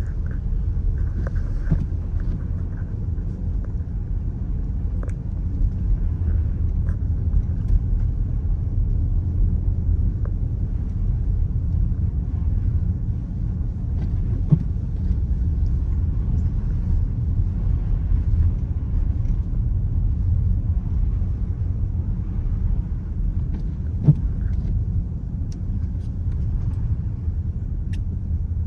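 2018 Dodge Durango driving on snowy streets: a steady low rumble of engine and road noise, with a couple of faint brief knocks.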